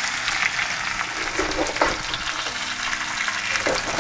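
Sliced potatoes sizzling in hot oil in a frying pan over high heat as a slotted spatula turns them, scraping against the pan a few times.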